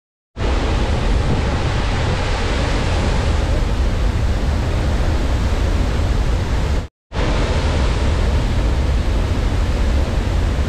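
Athirappilly Falls in monsoon flood: a loud, steady rush of heavy falling water with a deep low rumble, and no break in the noise apart from a momentary dropout about seven seconds in.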